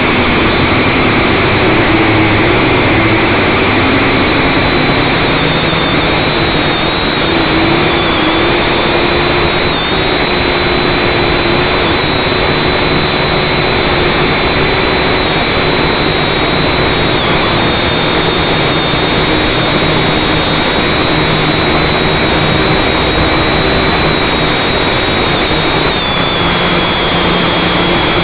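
FPV drone's electric motors and propellers in flight, heard from on board as a loud, steady whine and rush of air, the pitch wavering slightly as the throttle shifts.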